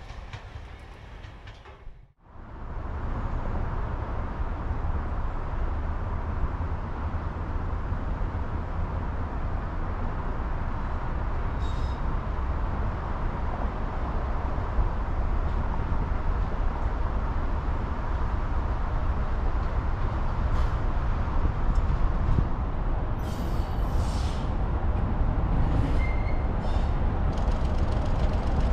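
Peak Class 45 diesel locomotive's Sulzer 12LDA28-B engine approaching, a steady low rumble that slowly grows louder. The sound cuts out sharply about two seconds in, just before the rumble begins.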